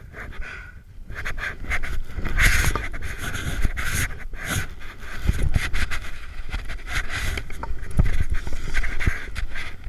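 Snowboard sliding and scraping over packed snow, with wind rumbling on the body-mounted camera's microphone, getting louder about a second in. The rider breathes hard throughout.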